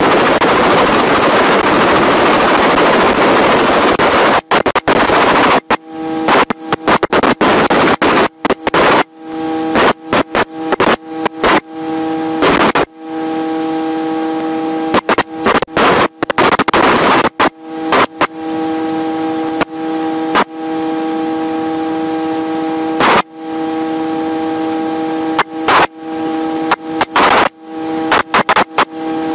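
Helicopter cabin noise in flight: a loud rushing noise at first, then a steady whine of several tones cut by many sudden, brief dropouts.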